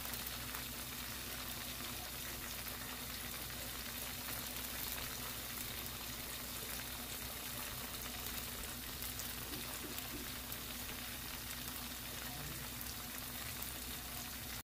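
Cod fillets frying in hot oil in a pan: a steady sizzle with fine crackling from the bubbling oil.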